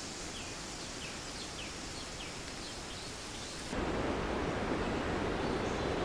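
Steady rushing of distant waterfalls in rainforest. A bird gives a string of short, falling chirps through the first half. A little past halfway the sound cuts abruptly to a louder, deeper rushing.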